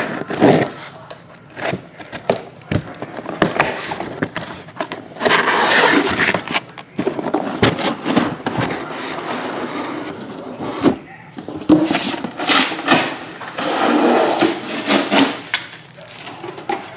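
A cardboard shipping case being cut open along its taped seam, then its flaps pulled back and the shrink-wrapped boxes of trading cards inside slid out and set down. Scraping, tearing and a string of sharp knocks.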